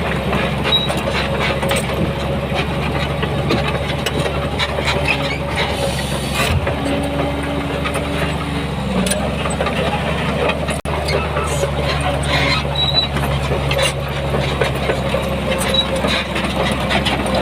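Heavy diesel construction machinery running steadily, with frequent metallic clicks and clanks over the engine's low hum.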